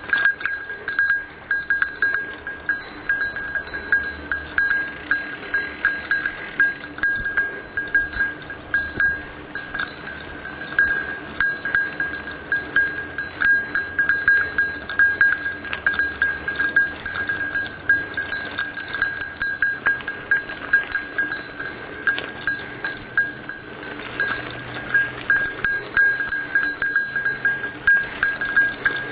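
A bell on a mountain bike jingling constantly as the bike bumps along the trail: a steady ringing tone broken by many quick rattling strikes. The rider keeps it ringing to warn other riders while his dog runs off-leash.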